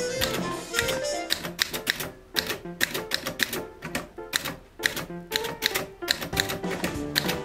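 Sholes typewriter being typed on: its keys strike in quick, uneven runs of sharp clacks with short pauses, over background music.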